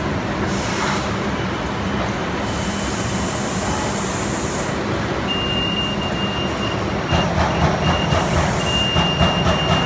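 Trumpf TruBend 7000 robotic CNC folding machine running a production cycle: a steady machine hum with short hissing bursts, a thin high beep that sounds on and off from about halfway, and a rapid clatter of knocks starting about seven seconds in.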